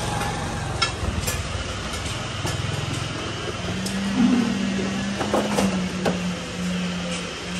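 A motor vehicle engine running with a steady low hum that settles into one held note about halfway through. A few light clicks and crinkles come from a plastic sheet being unrolled over a wooden bench.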